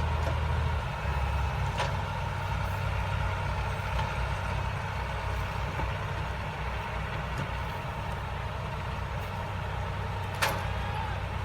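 Heavy diesel machinery running steadily, its low engine note shifting slightly about a second in, with a single sharp knock near the end.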